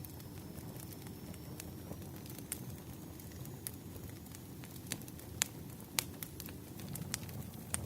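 Wood fire crackling: a steady low rumble of burning with sharp pops every second or so, the loudest a little past the middle. A faint thin high whistle runs underneath.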